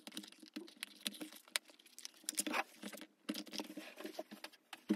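Fingernails picking and scratching at the flap of a small cardboard box: a run of irregular light clicks and scratches.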